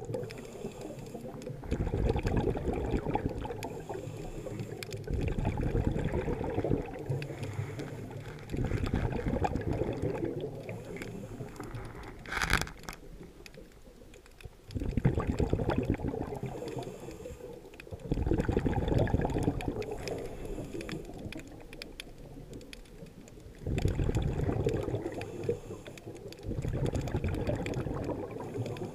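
Scuba diver's regulator exhaust bubbles heard underwater: about six loud rushing bursts of bubbling, each lasting two to three seconds and a few seconds apart, one per exhaled breath, with quieter breathing-in pauses between. A single short click comes about halfway through.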